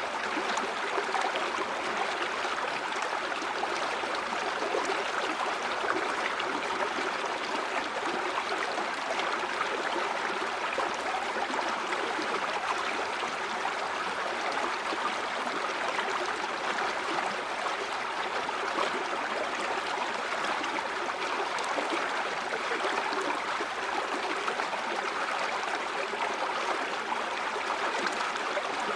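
River water flowing steadily over rocks, a continuous rushing and gurgling with no pauses or changes.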